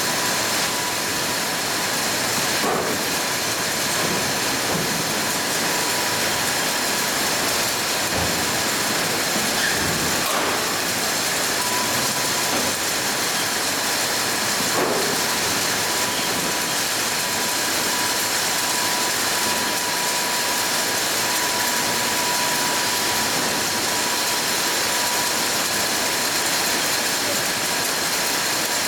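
Steady machinery noise from a robotic palletizing cell and its pail conveyor, with a thin whine that comes and goes and a few soft knocks.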